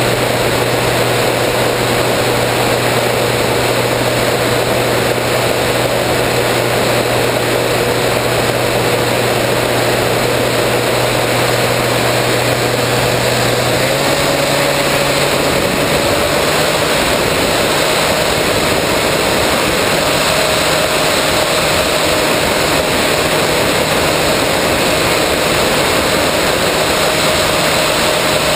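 Electric motor and propeller of a 3 m RC plane running at a steady pitch under a rush of wind over the onboard microphone. The motor note steps up slightly about halfway through.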